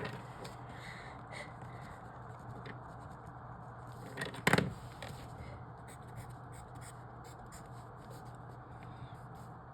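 Writing on paper: light scratching strokes and small ticks as boxes are marked, with one louder knock about four and a half seconds in.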